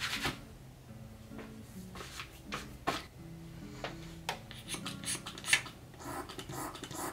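Hands dispensing self-tanning foam and rubbing it onto skin: scattered short rubbing and handling noises, over quiet background music.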